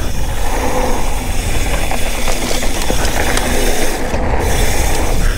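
Downhill mountain bike descending a dirt trail at speed: a continuous rush of wind and rolling tyres on packed dirt, with scattered clicks and rattles from the bike.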